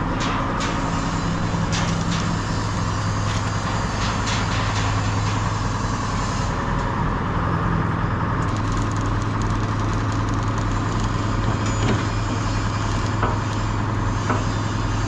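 Forklift engine running steadily while it holds a heavy sprocket in place, with a few light metallic knocks and clinks over it.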